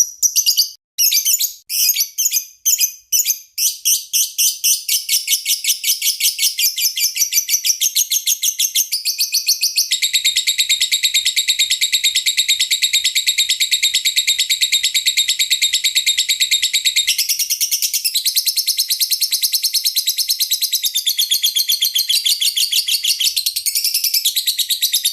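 Lovebird singing: separate high chirps at first, quickening within a few seconds into a fast, unbroken chattering trill that runs on, changing tone about ten seconds in and again a few seconds later.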